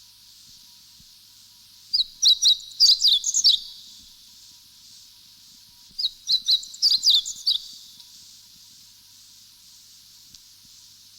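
A wild songbird sings two short phrases of quick, high chirping notes about four seconds apart, over a steady high background hiss.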